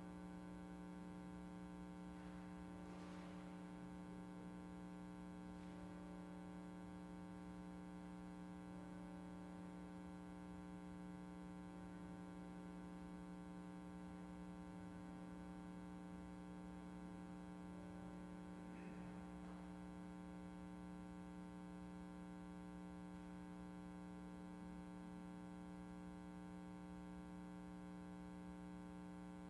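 Steady low electrical hum made of several fixed tones, with two faint brief noises about three seconds and about nineteen seconds in.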